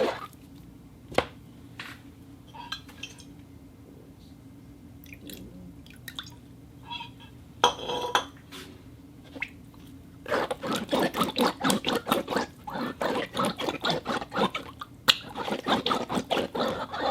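Wet hands against glass: scattered drips and small clicks at first, then, from about ten seconds in, fast continuous rubbing strokes of wet skin on glass.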